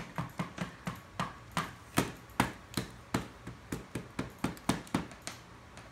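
Small digging tool tapping and chipping at the chocolate block of a dinosaur-fossil excavation kit in its tray: a run of sharp taps, about three a second, stopping shortly before the end.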